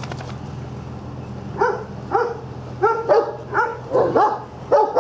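A large dog barking, a run of about eight short barks beginning about a second and a half in, over a steady low hum.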